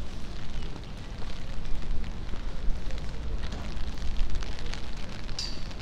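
Outdoor wet-street ambience on a rainy night: a fluctuating low rumble of wind buffeting the phone's microphone, with crackle and scattered small ticks. A short high squeak comes near the end.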